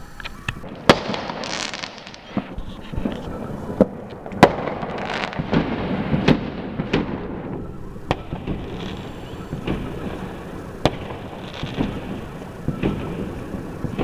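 Fireworks going off around the neighbourhood: scattered sharp bangs, the loudest about a second in and again around four and a half seconds in, with crackling and hissing between them.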